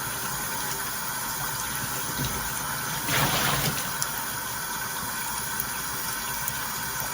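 Water spraying steadily from a regular shower head, an even hiss, with a brief louder surge about three seconds in.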